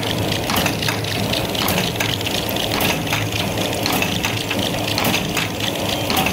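Paper cup blank punching machine running, with a steady mechanical hum and rush and frequent sharp clicks as it cuts printed paper blanks.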